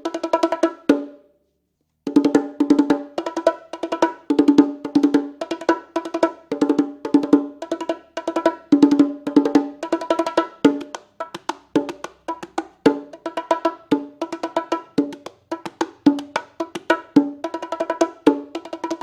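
LP Aspire bongos played by hand in a cumbia rhythm, quick bright strokes. The playing stops for about a second near the start, then the pattern picks up again and runs on steadily.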